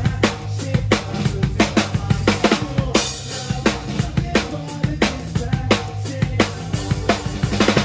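Rock drum kit played live, heard up close from behind the kit: kick drum, snare and cymbal hits in a fast, steady beat, with the rest of the band's bass and guitars underneath.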